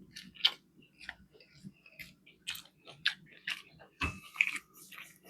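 A person chewing with the mouth open: wet, irregular smacking and clicking, with a louder burst about four seconds in.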